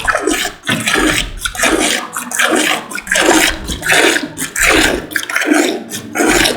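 A cow being milked by hand, milk squirting into a pail in short rhythmic strokes, about one and a half a second.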